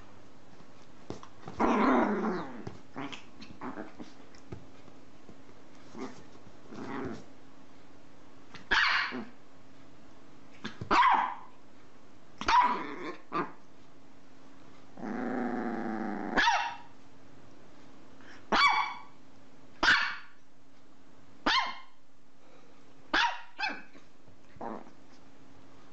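Chihuahua barking in play: a dozen or so short, sharp barks spaced one to two seconds apart, with two longer drawn-out calls near the start and about halfway through.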